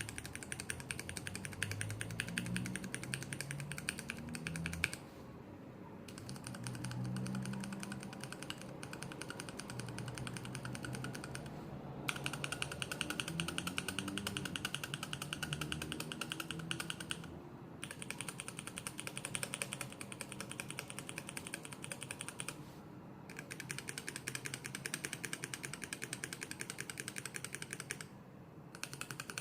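Stock, unlubed SP-Star and Tecsee mechanical keyboard switches in a switch tester, pressed rapidly over and over, one switch after another, with short pauses between each run of clicking.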